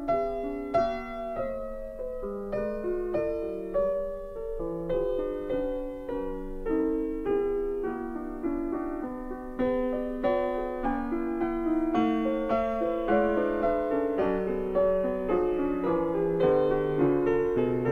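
Background piano music, a steady flow of struck notes in a gentle melody.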